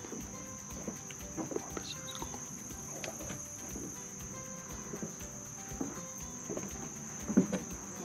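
Steady high-pitched chorus of insects in the marsh grass, with irregular footsteps on wooden dock boards and one louder thump near the end.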